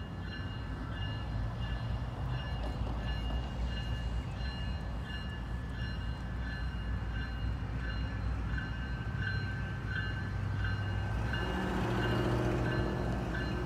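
GE Dash 9-40CW diesel locomotive's V16 engine running low and steady, then revving up about eleven seconds in as it throttles up to pull away. A bell rings in a steady rhythm throughout.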